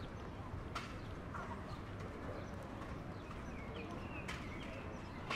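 Street ambience: footsteps on pavement, distant voices and scattered short bird chirps, with a couple of sharp clicks.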